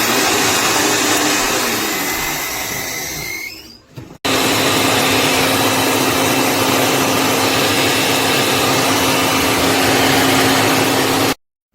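Hamilton Beach Wave Crusher blender with a glass jar running. It runs loudly for about four seconds and fades, stops briefly, then starts again and runs steadily until it cuts off abruptly near the end.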